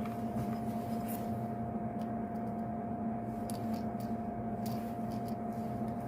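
Steady electrical hum, with a few faint light ticks of small parts being handled.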